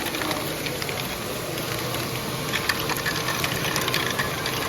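Lego train running on its plastic track: a small electric motor whirring steadily with many light clicks of wheels over the track, against the hum of a busy hall.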